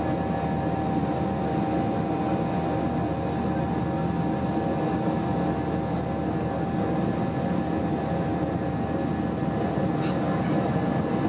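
Cabin noise of an Airbus A320-232 in climb: the steady rumble of its IAE V2500 engines and the airflow, with a steady whine held on top. A faint tick or two sounds near the end.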